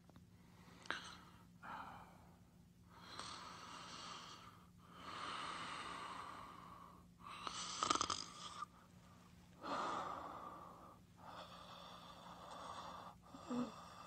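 Sleep sound effect of snoring and heavy breathing: a slow run of breathy, wheezy inhales and exhales, each a second or two long with short pauses between.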